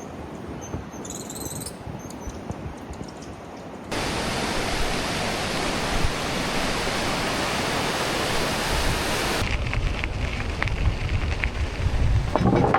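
Rushing river water, a loud steady hiss that cuts in suddenly about four seconds in, after a quieter stretch with a few short high chirps. Near the end it gives way to a lower rumbling noise.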